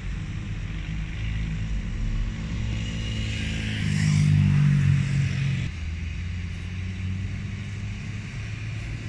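Boeing 737-800's CFM56 jet engines at takeoff power on the takeoff roll, heard from beside the runway: a steady low roar with a whine that rises and grows loudest about four seconds in, then drops back suddenly to a steady roar.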